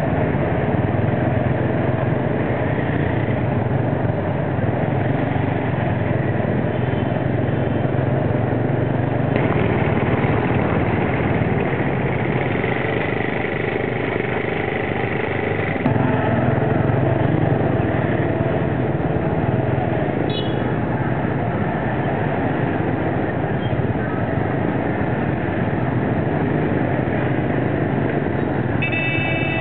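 Small motorcycle engines running in dense moped traffic, heard from the passenger carriage of a motorcycle-drawn tuk-tuk: a steady engine hum with road noise. A brief horn toot comes about two-thirds of the way in, and horns start sounding right at the end.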